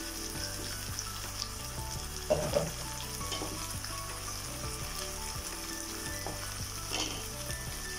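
Raw chicken pieces sizzling steadily in hot oil in a frying pan, just added to the fried onions. A couple of short knocks come through, the loudest about two and a half seconds in.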